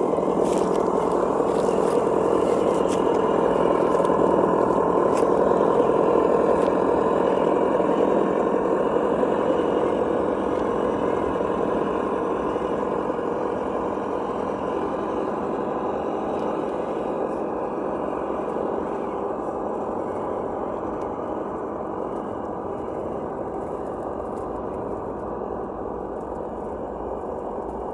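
Traxxas TRX-4 RC crawler driving, its Reely sound module playing a simulated engine sound through a small onboard speaker. The sound is steady, with a few small clicks and scrapes in the first seconds, and grows gradually fainter through the second half.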